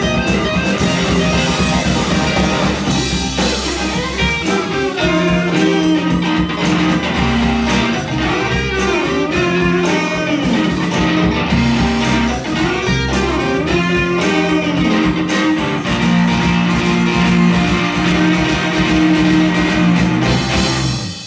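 Live blues band playing, with an electric guitar taking the lead in bent, sliding notes over bass and drums. The band stops together at the very end.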